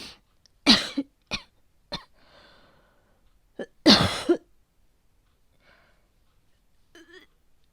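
A woman coughing in fits, performed as the cough of a feverish cold. There is a harsh double cough just under a second in, then two short coughs and a breath out, then a stronger double cough about four seconds in, with faint breathing near the end.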